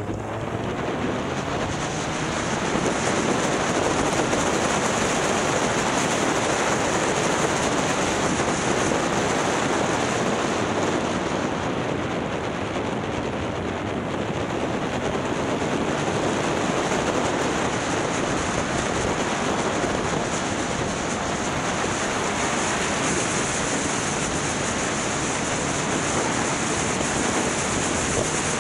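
Wind rushing over the microphone of a motorcycle riding at speed, a steady roar of noise that swells over the first couple of seconds and then holds.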